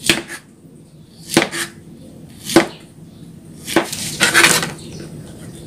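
Knife chopping pineapple on a plastic cutting board: four sharp chops about a second apart, then a longer clatter about four seconds in.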